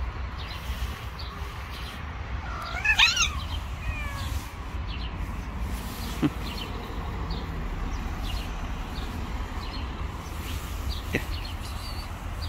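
A cat meows once, a loud call with a bending pitch lasting about a second, about three seconds in.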